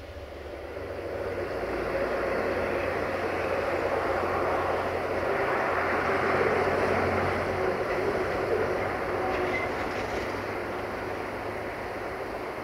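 A 060-DA-type diesel-electric locomotive approaching with its engine working, smoking from the exhaust. The engine and train sound swell over the first two seconds, hold steady and loud, then ease a little near the end.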